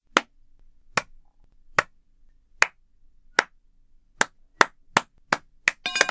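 Hand claps in a slow clap: single sharp claps about a second apart that steadily speed up, breaking into a quick flurry of claps near the end.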